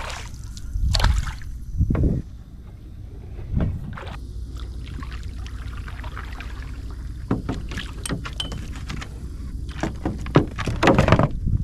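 Irregular splashes and knocks in shallow marsh water over a steady low rumble.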